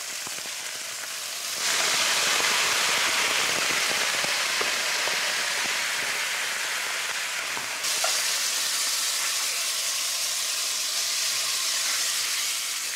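Rolled beef braciole sizzling in a hot pan of olive oil. About a second and a half in, the sizzle jumps much louder into a steady hiss as white wine goes into the hot pan to deglaze it, and it keeps bubbling and sizzling while the rolls are turned with metal tongs.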